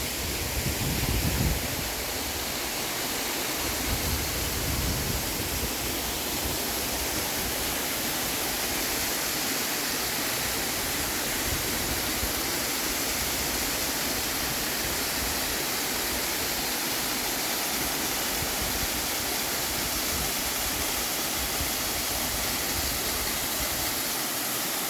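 Waterfall rushing steadily, a constant, even roar of falling water. A few low rumbles come in the first few seconds.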